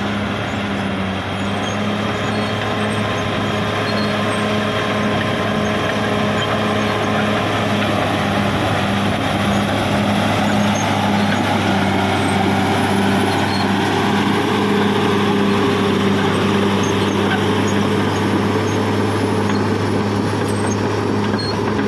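Caterpillar D6R XL bulldozer's diesel engine running steadily, a continuous drone with a regular pulsing hum. One of its tones shifts a little higher about halfway through.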